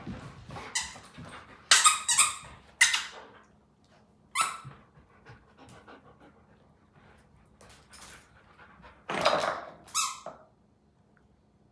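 A dog at play, with a series of short, high-pitched squeaks in bunches, loudest around two seconds and again around nine to ten seconds in.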